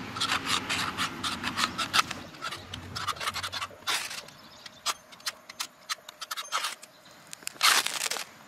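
The spine of a large box-cutter blade scraped along a ferrocerium fire-starter rod to throw sparks. There are quick, repeated strokes for the first three or four seconds, then a few separate strokes and one longer scrape near the end.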